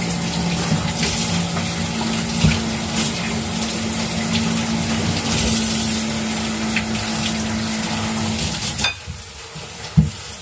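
Kitchen tap running into the sink while hands rinse things under the stream, a steady water hiss with a low hum beneath it. Nearly nine seconds in there is a click and the sound drops sharply to a quieter flow, followed by a few knocks.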